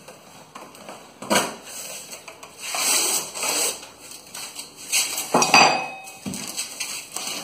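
Cardboard box being handled and pushed along a workbench: a knock about a second in, a stretch of scraping and rustling, then a metallic clink with a brief ring a little after five seconds.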